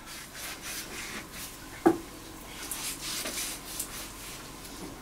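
A bushcraft knife blade cutting through raw pig's trotter on a wooden cutting board: repeated scraping, rubbing strokes, with one sharp knock about two seconds in.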